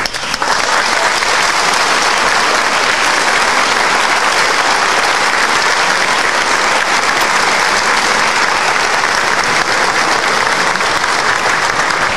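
Applause from a chamber full of legislators, greeting an oath of office just sworn; it swells within the first half-second and then holds steady and dense.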